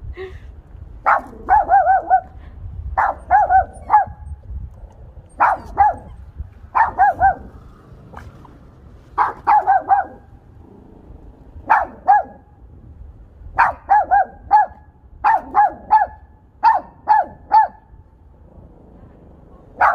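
Small dog, a Maltipoo, barking high-pitched in quick runs of two to four barks, repeated every second or two, with a short pause about eight seconds in.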